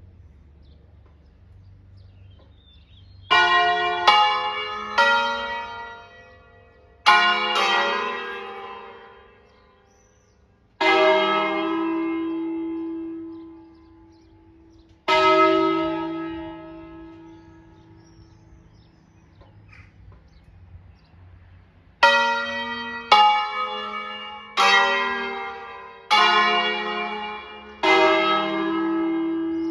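Five church bells tuned in E-flat (the largest on E-flat 3, Crespi castings of 1853) playing a short solemn concerto. Single strokes from different bells come in quick groups, with a long pause between groups. Each note rings out and dies away.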